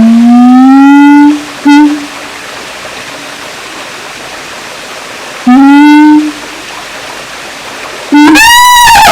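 Siamang calling with loud, rising hoots: a long one, a short one, then another long one a few seconds later. Near the end a louder call rises and falls and breaks into rapid repeated calls.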